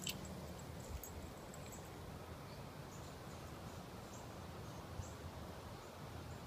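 Quiet backyard ambience: a steady low rumble and hiss with scattered faint high chirps. A sharp click comes right at the start, and there are a couple of soft thumps.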